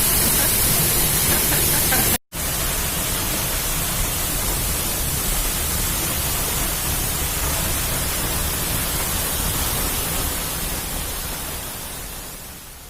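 Steady noise of falling water from a waterfall. It drops out for an instant about two seconds in, then carries on and fades away near the end.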